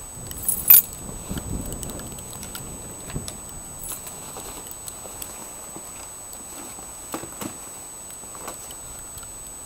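Keys jangling with scattered clicks and knocks, the loudest under a second in, as the motorbike's key and switches are handled and the ignition and headlight are switched on. The diesel engine is not running.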